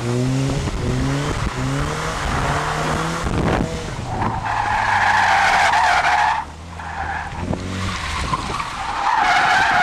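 Car engine revving up and down in quick climbs, then the tyres squealing in two long slides, about four seconds in and again near the end, as the car is driven hard through turns.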